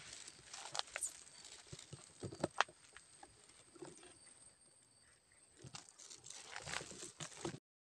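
Footsteps and rustling through dense grass and brush, with scattered short clicks and brushing sounds of leaves. The sound cuts off suddenly near the end.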